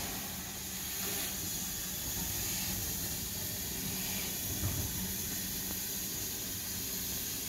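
Steam hissing steadily from BR Standard Class 4 2-6-4 tank locomotive 80097 as it stands wreathed in its own steam.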